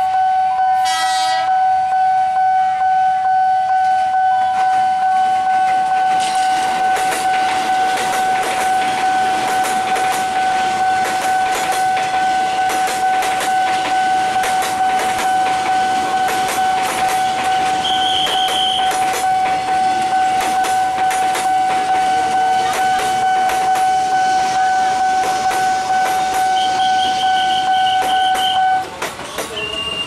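A level-crossing warning siren holds one steady high tone while a JR 203 series electric commuter train passes, its wheels clattering over the rail joints. A short blast of the train's horn comes about a second in, and two brief high squeals come later. The siren cuts off shortly before the end.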